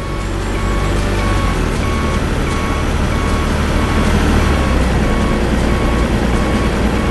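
Truck engine running with a steady low rumble, together with a reversing alarm beeping evenly, a little under twice a second.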